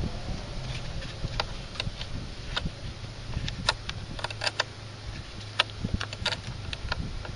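Scattered, irregular clicks and light metallic taps of hand tools working on car battery terminal connectors, over a steady low hum.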